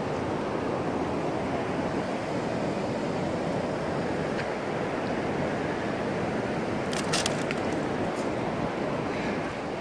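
Steady outdoor rushing noise, with a brief cluster of sharp clicks about seven seconds in.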